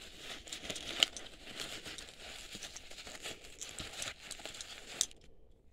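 Rustling and crinkling of a 1986 Coleco Young Astronaut Cabbage Patch Kid's white nylon space suit as hands pull it back and work beneath it, with a sharp tap about a second in and another about five seconds in, where the rustling stops.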